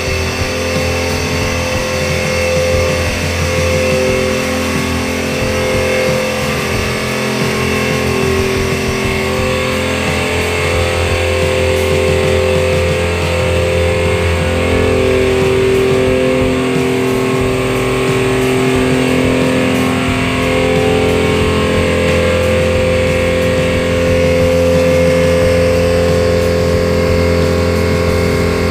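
Futsu roots blower running steadily, a constant machine hum with held tones, over the churning of an aeration tank bubbling hard from fine-bubble diffusers.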